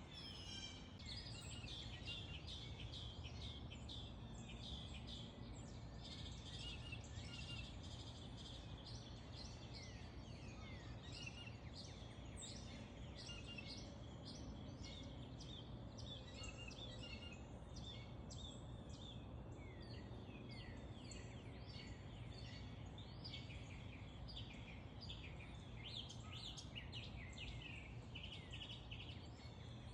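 Many small birds chirping and twittering continuously, over a steady low rumble of background noise.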